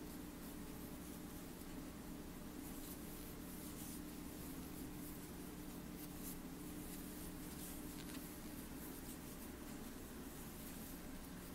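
Faint scratchy rustling of yarn being pulled through loops and drawn over a crochet hook as single crochet stitches are worked, over a steady low hum.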